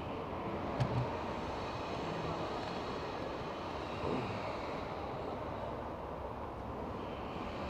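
Steady rushing background noise, with a couple of soft thumps about a second in as a flexible duct hose is pushed and worked onto a fume extractor's plastic outlet.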